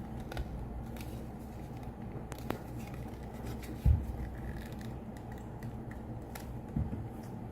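Small handling sounds over a steady low hum: a few faint clicks and one soft thump about four seconds in.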